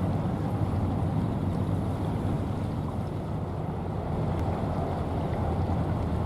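Steady low drone of a departing cement carrier's engine, an even hum with a faint pitched undertone, mixed with wind rumble on the microphone.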